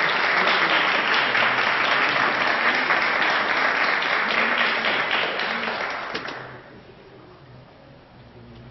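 Audience applauding, a dense patter of many hands clapping that dies away about six and a half seconds in.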